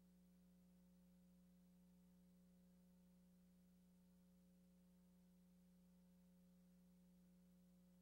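Near silence with a faint, steady electrical hum, one low pitch with fainter overtones, that does not change.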